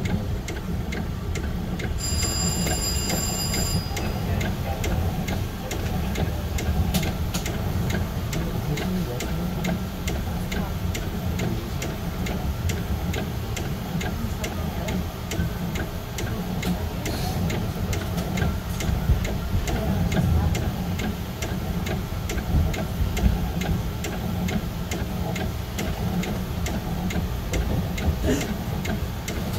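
Budd M3 electric train running slowly with a steady low rumble, and a regular ticking of about two clicks a second over it. A brief high-pitched tone sounds about two seconds in.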